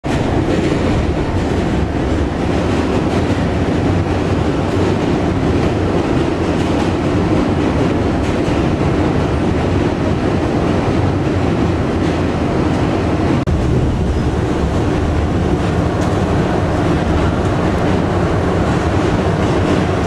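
New York subway Q train running across the Manhattan Bridge, heard from inside the car: a loud, steady rumble of wheels on the rails.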